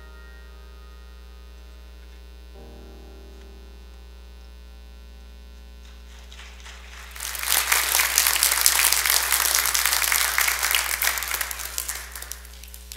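The last chord of the keyboard accompaniment fades over a steady electrical hum. Then the congregation applauds for about five seconds, starting about seven seconds in and tapering off near the end.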